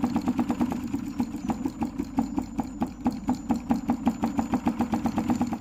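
Homemade solenoid engine running: a fast, even clatter of about eight clicks a second as the copper coil drives the neodymium magnet back and forth, over a steady low hum.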